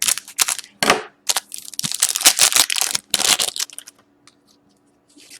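Wrapper of a trading card pack being torn open and crinkled by hand: a run of loud crackling and rustling for about three and a half seconds, then it stops.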